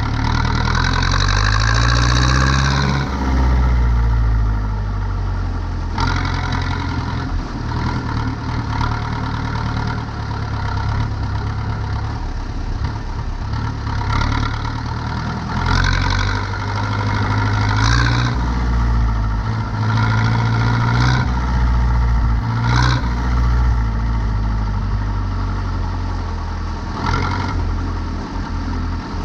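Zetor 7245 tractor's four-cylinder diesel engine running steadily. Its speed rises and falls briefly several times: at the start, then around the middle and again near the end.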